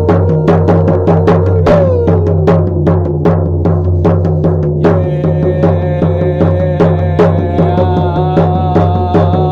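Hand drum beaten in a steady, even rhythm of about two to three beats a second, as in a shamanic drum journey, over a low steady drone. About five seconds in, a held, slightly wavering tone joins the drumming.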